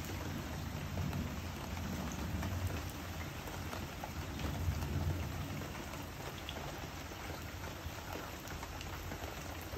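Steady rain falling outside, a continuous even hiss of raindrops on the ground.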